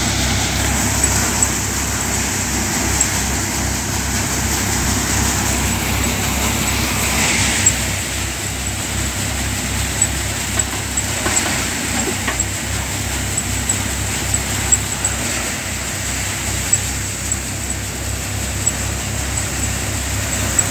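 Surya paddy thresher running steadily under load: a low engine hum beneath a continuous rushing rattle of paddy and straw going through the machine, with scattered sharp clicks.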